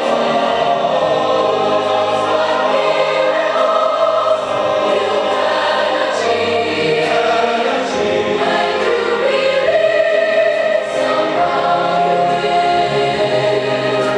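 A choir singing, with sustained notes held a second or two at a time.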